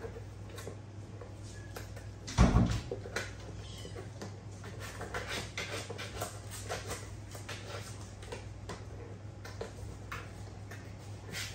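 Eight-week-old rough collie puppies playing by a cardboard box: faint puppy sounds among scuffling and light clicks on the floor, with one thump about two and a half seconds in.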